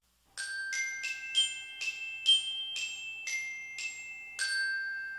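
A short intro jingle of ringing, bell-like struck notes: about ten notes in a quick melody, the last one left to ring out and fade.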